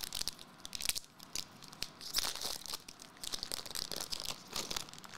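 Foil trading-card pack wrapper crinkling and crackling as it is handled, in irregular bursts, busiest about two seconds in and again near the end.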